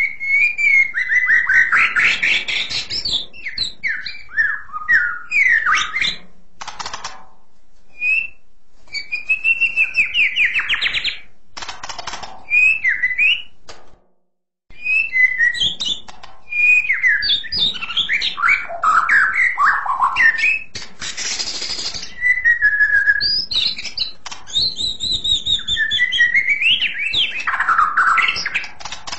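White-rumped shama singing a long, varied song of clear, shrill whistled phrases, quick sliding trills and a few short harsh notes. The song breaks off briefly about halfway through.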